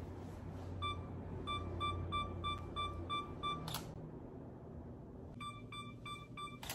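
Camera self-timer beeping, two runs of short high beeps at about three or four a second, each run ending in a sharp click of the shutter firing.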